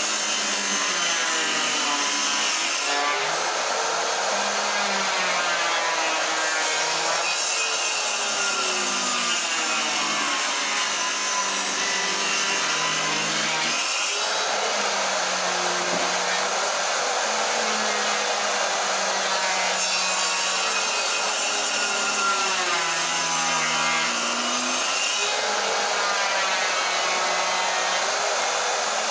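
Bosch table saw running and cutting wood, several cuts in a row, the motor's pitch sagging and recovering as each piece is fed through the blade.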